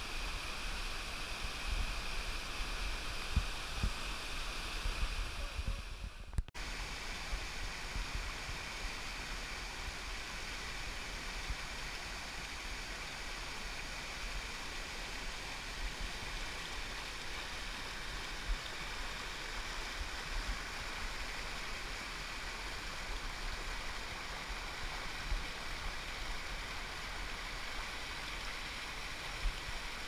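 Mountain river rushing over granite boulders and small waterfalls, a steady even rush of water, with a brief break about six seconds in.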